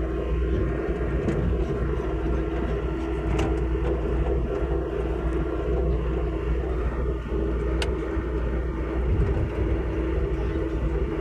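Hitachi mini excavator's diesel engine running steadily under work, with a steady hum and low rumble, and a couple of brief sharp clicks.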